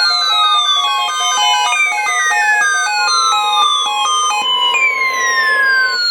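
Electronic siren-like alarm tone, sweeping down in pitch about every three seconds, over a pattern of short stepped electronic beeps that stops about four and a half seconds in.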